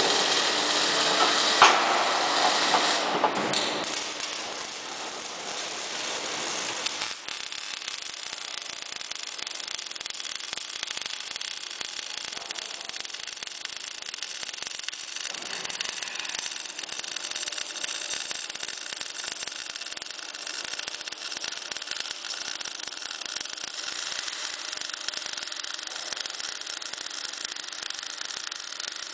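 MIG welding arc on steel crackling and hissing steadily, with a faint steady hum underneath. The first few seconds are louder and rougher, with one sharp knock.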